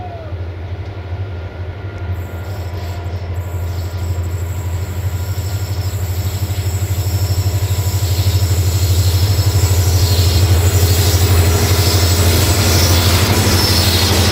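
Diesel-electric locomotive hauling a passenger train as it approaches and passes: a steady low engine drone grows louder. Wheel-on-rail hiss builds from about two seconds in and is strongest near the end, as the locomotive draws level.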